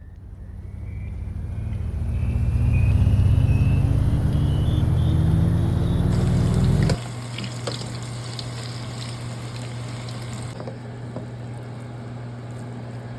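A motor running with a low rumble, its pitch rising slowly as if accelerating. About seven seconds in it cuts off abruptly to a quieter, steady hum with a few scattered clicks.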